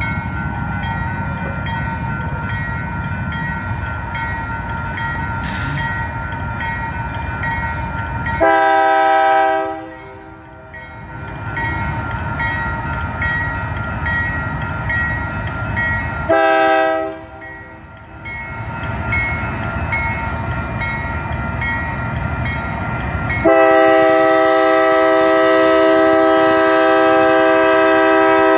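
Union Pacific diesel locomotive's multi-chime air horn sounding for a grade crossing: a blast about eight seconds in, a short one near the middle, then a long blast held for the last five seconds. Under it a grade-crossing warning bell dings steadily, with the low rumble of the approaching train.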